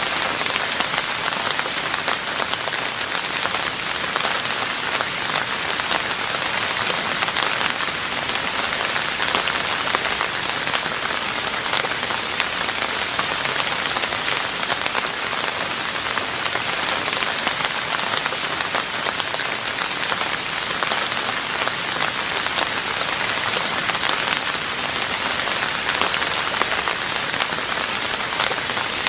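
Steady rain falling on a roof: a dense, even patter of drops that holds unchanged throughout.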